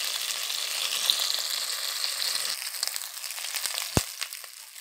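Dried salted threadfin bream frying in hot oil in a nonstick pan: a steady sizzle that thins to scattered crackles about two and a half seconds in. One sharp tap comes near the end.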